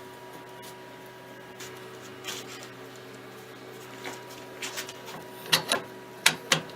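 Sharp clicks and knocks of small metal parts being handled and fitted, getting louder toward the end with two quick double knocks, over a steady electrical hum.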